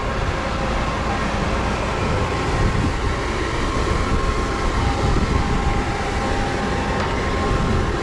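Grain auger running, carrying soybeans up from its hopper: a steady mechanical hum with a few faint steady tones.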